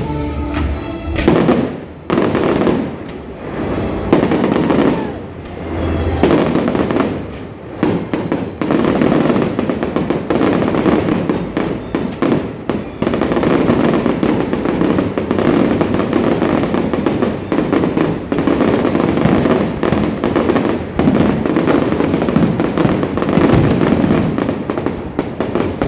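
Fireworks going off: a few separate booms, each fading away, in the first six seconds or so, then a dense, continuous crackle of many rapid bursts.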